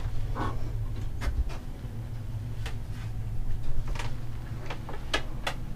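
Several light clicks and taps, scattered irregularly, over a steady low hum in a small room.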